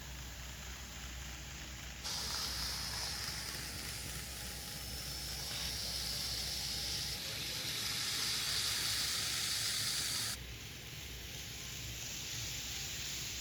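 N scale model train running on layout track: a steady hissing rush. It grows louder and higher-pitched suddenly about two seconds in and drops back just as suddenly about ten seconds in.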